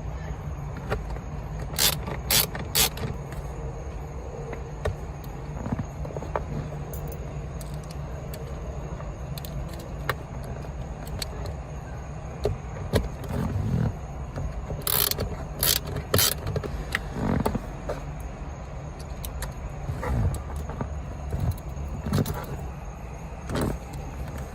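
Sharp clicks and knocks of parts being handled and fitted, including two quick runs of three louder snaps, over a steady low hum.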